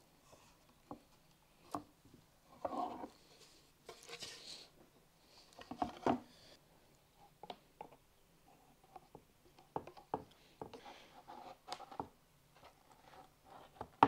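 Hands and a thin plastic spreader working wood glue into a crack in a wooden panel on a workbench: scattered light taps, clicks and short scrapes.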